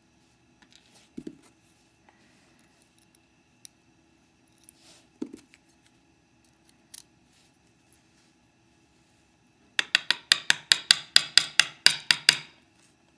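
Small metal parts and tools clicking and tapping as a Mauer NW4 euro cylinder lock is taken apart: a few scattered clicks and knocks, then a quick run of about fifteen sharp metallic clicks, roughly five or six a second, near the end.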